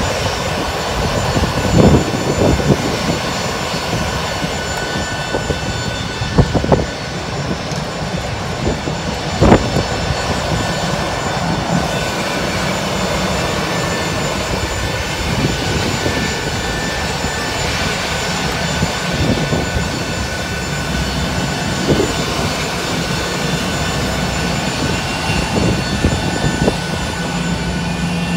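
Steady jet-turbine roar and whine from airliners on the airport apron, with several thin high tones held throughout. A few sharp knocks stand out, the loudest about a third of the way in.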